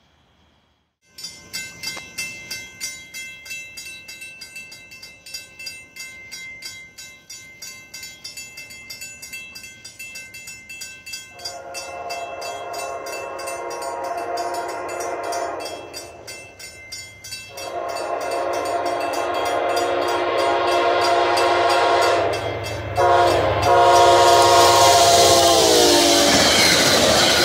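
Grade-crossing warning bell ringing rapidly, then a CTrail passenger train's horn sounding the crossing pattern: two long blasts, a short one and a final long one. Wheel and train noise builds loud as the train passes, and the horn's pitch drops as the lead unit goes by.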